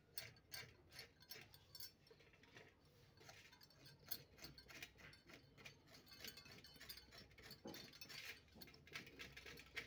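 Faint, irregular scraping and light clicking of a kitchen knife peeling the skin off a white radish, the blade now and then tapping a steel plate.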